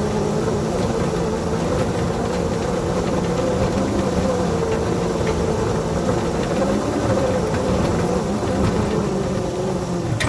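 Engine of a small ride-on backyard-railroad locomotive running steadily under load as it pushes a snowplow through deep snow: an even drone whose pitch wavers slightly.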